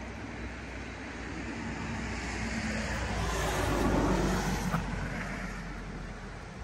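A vehicle passing by, its noise swelling to a peak about four seconds in and then fading away.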